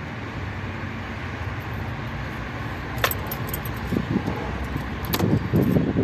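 A key ring jangling at the truck's ignition, with sharp clicks about three seconds and five seconds in. The second click is followed by about a second of louder low rumbling, over a steady background noise.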